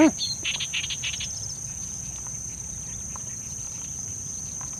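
Steady high-pitched drone of insects in swampy rice-field country, with a bird chirping a few times and giving a quick trill in the first second and a half.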